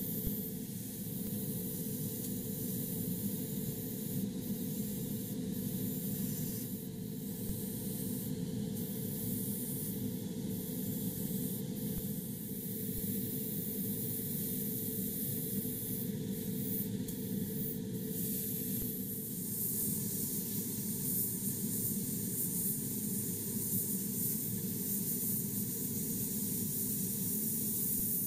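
Gravity-feed airbrush hissing steadily as it sprays black primer. The high hiss breaks off briefly several times in the first twenty seconds, then runs on unbroken and a little brighter.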